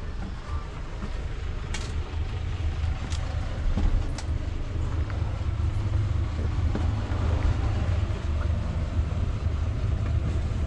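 Steady low rumble of a moving vehicle, with a few sharp clicks in the first half.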